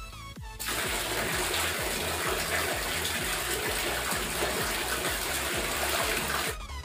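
Water poured from a mug over long shampooed hair to rinse it, a steady splashing rush that starts about half a second in and stops just before the end. Background electronic music with a steady beat runs underneath.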